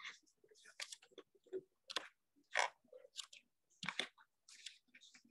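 Faint, irregular clicks and crackles close to the microphone, several a second, with no steady rhythm.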